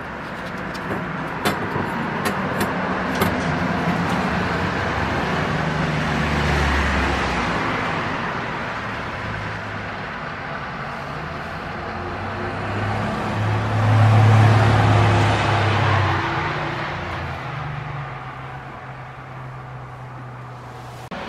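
Road vehicle noise, engine drone and rushing, swelling and fading with its loudest pass about two-thirds of the way in; a few light ticks in the first few seconds.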